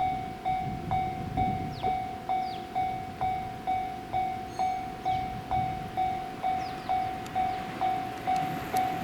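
Japanese level-crossing warning bell ringing, a single electronic clanging tone repeating evenly about twice a second, signalling that a train is approaching.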